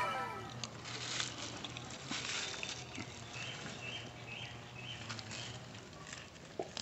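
Cats chewing raw meat: scattered soft, wet clicks and smacks of chewing and tearing. A run of about five faint high chirps, roughly two a second, comes about halfway through.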